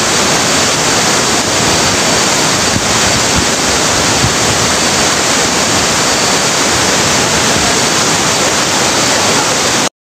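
Waterfall: a loud, steady rush of falling water that cuts off abruptly near the end.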